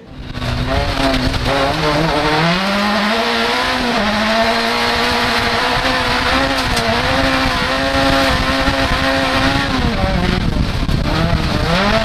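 VW Polo autocross car's engine heard from inside the cockpit, driven hard at high revs: the pitch climbs about two seconds in, holds high with small rises and falls as the driver works the throttle, and drops briefly near the end before climbing again.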